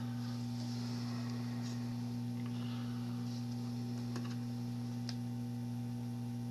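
Steady electrical mains hum with a few faint, scattered clicks and scratches from multimeter probe tips being set on test points of a circuit board.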